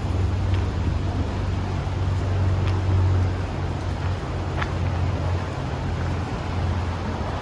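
Steady low mechanical hum with wind rumbling on the microphone, and a faint click about four and a half seconds in.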